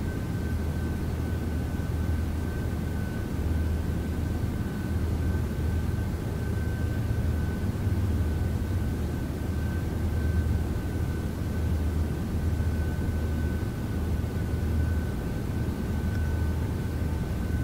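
A steady low droning hum that swells and dips slightly, with a thin steady high tone and a hiss over it.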